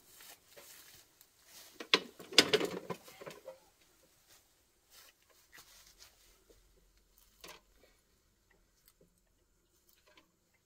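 Dry brush and twigs crackling and snapping as a walk-behind tiller is hauled through them. The sound comes as a dense burst about two seconds in, then only scattered small cracks.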